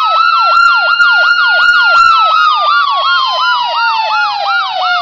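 Ambulance siren sounding two tones at once: a slow wail that holds high and then falls steadily toward the end, over a rapid yelp of falling sweeps about four times a second.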